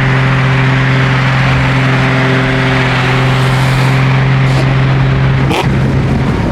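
Car engine and exhaust droning steadily while cruising, one low even hum. About five and a half seconds in there is a sharp click, and the drone gives way to a rougher, uneven rumble.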